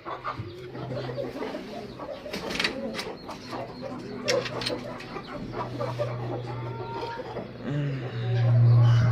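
Aseel chickens clucking, with a few sharp knocks and rustles. A steady low hum comes in about halfway through and grows louder near the end.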